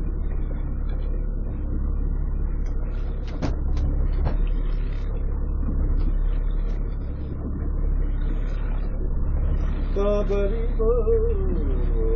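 A small fishing boat's engine running with a steady low rumble. There are two sharp knocks about three and a half and four seconds in, and a brief voice near the end.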